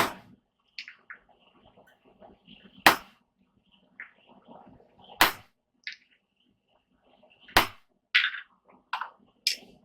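Hammer striking a rounded dapping punch to drive a depression into hot steel. Four hard, ringing blows come a couple of seconds apart, then a few lighter strikes near the end.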